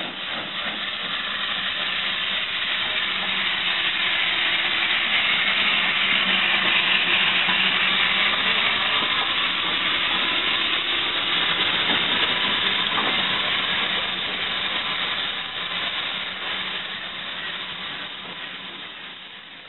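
USA Class 0-6-0 side tank steam locomotive hissing steam as it rolls slowly past. The hiss grows louder as the engine draws level, then fades as it moves on with its coaches.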